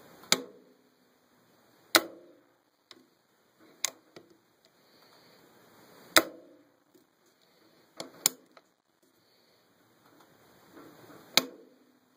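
AR-15 nickel boron fire control group being dry-fired in a bare lower receiver: the hammer snaps forward with a sharp metallic click each time the trigger is pulled, about six clicks a second or two apart, one pair close together. Fainter clicks and a low handling rustle come between them.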